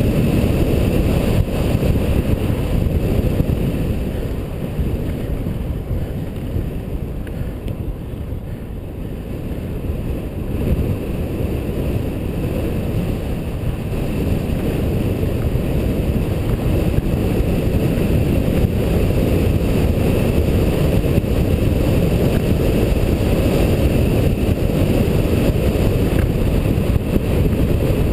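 Wind rushing over a helmet-mounted GoPro HD Hero's microphone as a bicycle moves along a road: a steady low rushing that eases a little about a fifth of the way in, then builds again.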